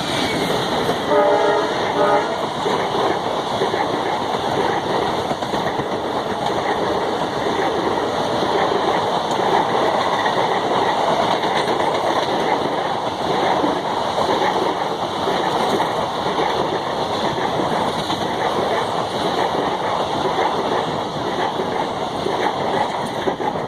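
An express train's passenger coaches running through a station at speed, their wheels clattering over the rail joints in a steady rush. A horn sounds briefly about a second in.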